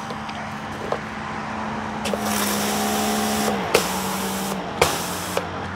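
Greenworks GPW3000 electric pressure washer running with a steady motor hum. About two seconds in the water jet from the surface cleaner sprays hard for about a second and a half, then in two shorter bursts. The hum shifts in pitch as the spray starts and stops, and a few sharp clicks come in between.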